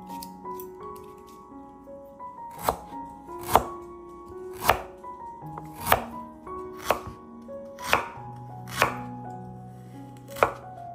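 About eight sharp knocks, roughly one a second and a little uneven, over soft background music with held notes.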